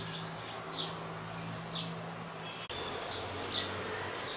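Short, high bird chirps repeat about once a second over a steady low hum. The hum cuts off abruptly just past the middle.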